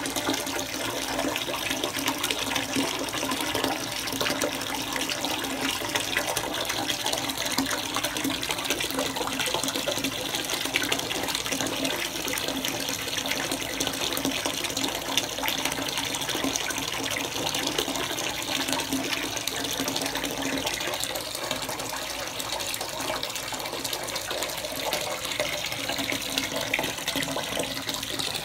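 Water running steadily into a bathtub, a continuous splashing hiss with fine crackle.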